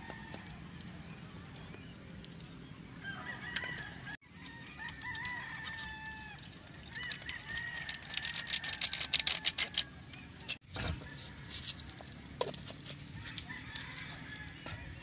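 Rooster crowing several times, each call drawn out and bending in pitch at the end, with a quick run of sharp clicks in the middle.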